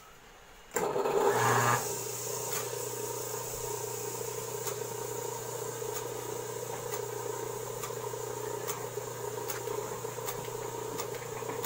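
Electric motorised platen die-cutting press switched on: the motor starts with a loud surge lasting about a second, then runs with a steady hum while the press cycles, with a light click every second or so.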